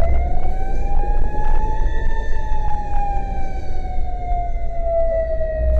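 Fire engine siren wailing: one slow sweep that rises in pitch for about two seconds, then falls gradually, over a low rumble.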